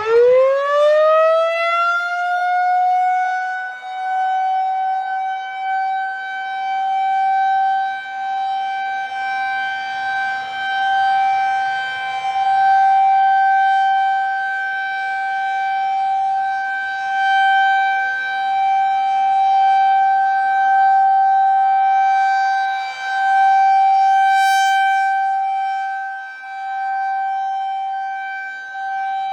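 Federal Signal 2001 rotating outdoor warning siren winding up to full pitch in the first couple of seconds, then holding one steady tone whose loudness swells and fades over and over as the rotating horn sweeps past. This is the siren's routine monthly test.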